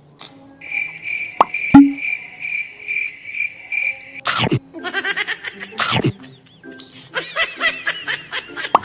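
Cricket-chirping sound effect: a steady, pulsing high trill lasting about three and a half seconds, used as the comic cue for an awkward silence. It is followed by short comic sound effects that swoop up and down in pitch.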